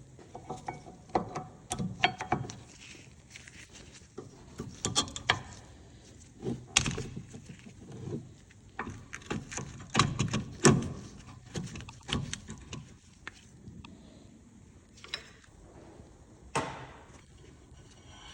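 Irregular metallic clinks and knocks of hand tools and brake parts being handled during brake disc and pad work, with a louder cluster of knocks about ten seconds in.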